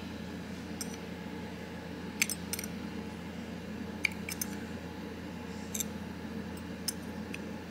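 Light metallic clicks of a loose steel folding-knife blade tapping against the handle's pivot and standoff hardware: a handful of separate ticks, the sharpest about two and four seconds in, over a steady low hum.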